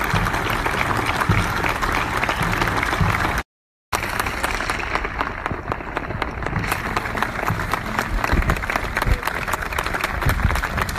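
A crowd applauding, dense steady clapping that cuts out completely for about half a second roughly three and a half seconds in, then carries on.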